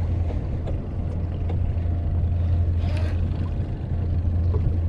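Boat engine running with a steady low drone, and a brief sharper sound about three seconds in.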